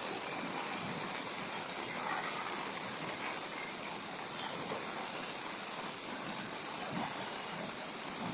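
Steady rain falling during a summer thunderstorm, heard through a Ring security camera's microphone.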